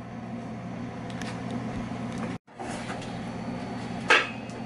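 Steady low background hum in a kitchen, with a single sharp metallic clink about four seconds in as a stainless steel pot lid is handled.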